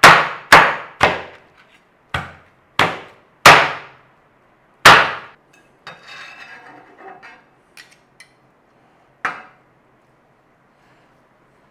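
Heavy chopping on a wooden board, seven hard chops: the first three about half a second apart, the rest spaced more widely. A few lighter knocks and clicks follow.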